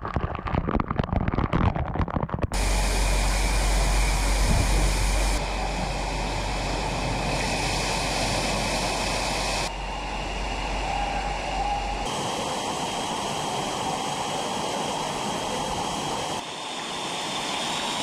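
Artificial waterfall crashing down with dense splashing for about the first two and a half seconds. Then steady running water from a toddler pool's spray fountains and water-slide outflow, its tone changing abruptly a few times.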